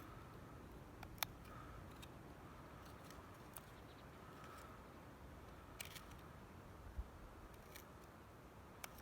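Near silence with a few scattered faint clicks and scrapes of a knife cutting a notch into a wooden fire-by-friction hearth board.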